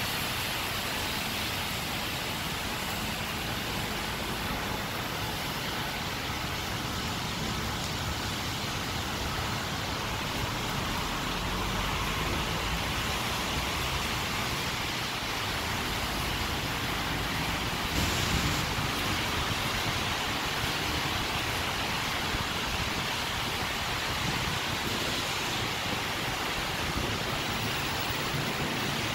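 Steady heavy rain, an even hiss, mixed with traffic on wet roads; it swells briefly about eighteen seconds in.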